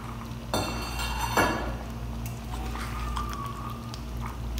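A metal utensil scraping and clanking against a cooking pan: a ringing scrape about half a second in, ending in one sharp clank, over a steady low hum.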